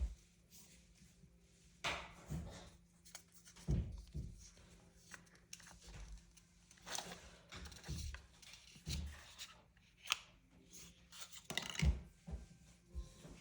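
Unboxing handling noises: packaging and boxes rustling and rubbing, with scattered soft thunks, taps and clicks as things are picked up and set down.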